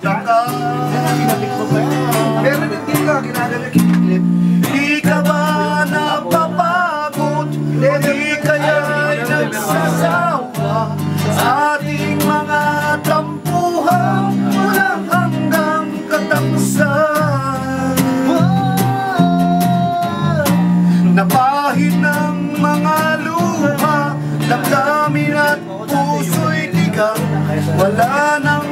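Acoustic guitars strummed in a steady rhythm, with a sliding melody line carried over the chords.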